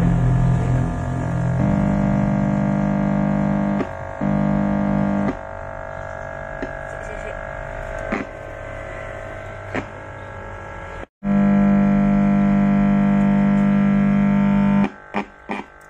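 Homemade miniature amplifier putting out a loud, droning hum and buzz of several steady tones through its speaker: the low drone switches on and off, cuts out abruptly a little past halfway, then returns loud before dropping away with a few clicks near the end. It is unwanted noise from a faulty power-amplifier circuit, which the builders put down to a loose wire connection.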